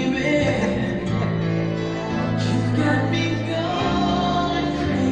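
A song with a singer, played loud over the hall's speakers for slow dancing.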